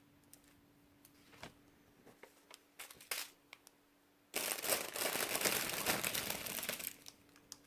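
Small plastic bags of diamond-painting drills being handled: a few light clicks, then about four seconds in a dense crinkling rustle of the plastic for two to three seconds.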